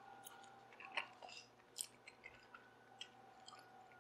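Faint, close-miked chewing and biting on a bone-in chicken wing: scattered wet clicks and smacks at irregular intervals.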